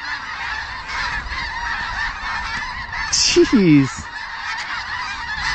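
A large flock of snow geese calling all at once: a dense, continuous chorus of high-pitched yelps and honks.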